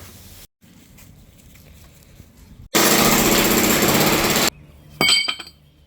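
A concrete breaker hammer runs loudly for about two seconds, in rapid even blows. Just after it stops, a single sharp metallic clank rings briefly.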